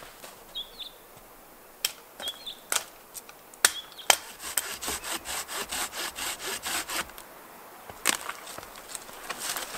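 Hand saw cutting firewood: a run of quick, even sawing strokes, about four a second, from about four seconds in to about seven, with a few sharp knocks of wood before and after.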